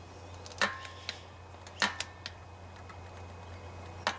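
Ratcheting torque wrench clicking on the engine's sump cover bolts: a few sharp metallic clicks, a short run of them about half a second in, another near two seconds, and one near the end, over a steady low hum.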